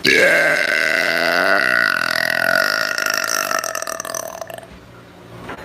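A woman's single long, loud burp. It starts abruptly and is drawn out for about four and a half seconds, sinking slightly in pitch before it tails off.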